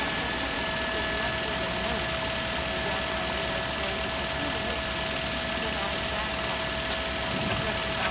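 Steady helicopter engine and rotor noise from inside the cabin of the filming news helicopter, with a constant high-pitched whine over a low rumble.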